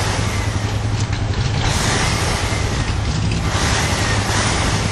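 A monster truck's large engine idling with a steady low rumble. Hissing swells with a faint creaking squeal come and go about every two seconds.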